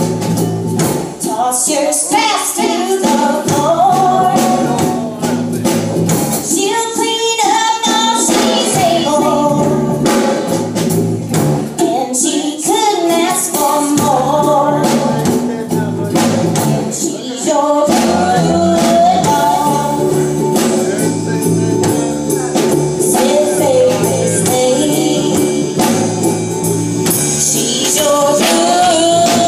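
Live band playing a song: a woman singing lead over electric guitars and a drum kit, with steady cymbal and drum hits.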